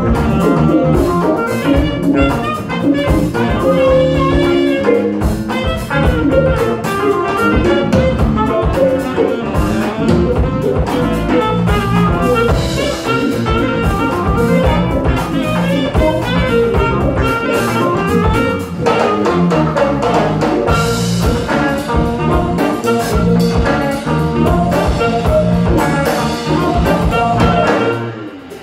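Live jazz band playing: a saxophone carries the melody over electric guitar, bass guitar, keyboard and drum kit. The music dips briefly just before the end.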